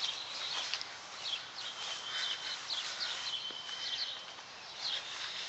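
Small songbirds chirping: many short, quick, falling chirps, with a thin steady whistle held for about two seconds midway, over faint outdoor hiss.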